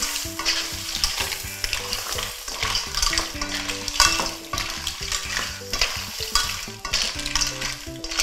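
Clams sizzling in a nonstick wok as a spatula stirs and tosses them through the sauce, with irregular scrapes and clatter of shells against each other and the pan.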